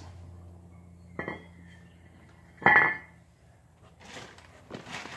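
Two metal clanks about a second and a half apart, the second much louder with a short ring, as a cast-iron brake rotor is handled and set down.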